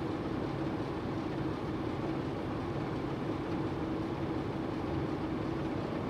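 Diesel engine of a standing Romanian CFR Class 60 (060-DA) diesel-electric locomotive idling: a steady drone with one held note.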